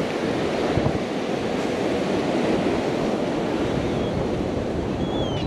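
Ocean surf washing onto the beach, with wind on the microphone.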